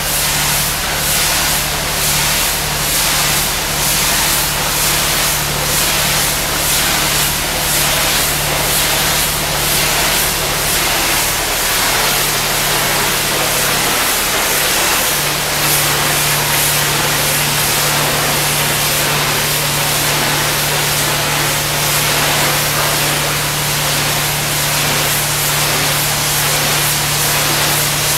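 Pressure washer spraying: a loud, steady hiss of the water jet over the steady low hum of an engine. The hum drops away briefly about halfway through, then returns.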